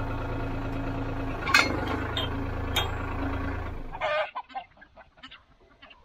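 Farm tractor engine idling steadily, with two sharp metal clanks at the hitch, then cut off suddenly about two-thirds of the way in. Hens clucking and calling follow.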